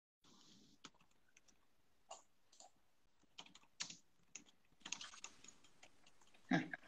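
Faint, irregular clicking taps of typing on a device, about a dozen spread over several seconds, with one louder knock near the end.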